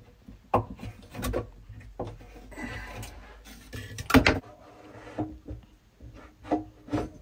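Hand tool knocking and scraping at a wooden cupboard while a section is chopped out of it: irregular knocks, the loudest about four seconds in, with a stretch of scraping between them.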